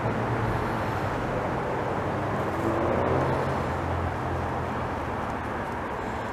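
Steady rumble of road traffic, with a vehicle passing and swelling in level about halfway through.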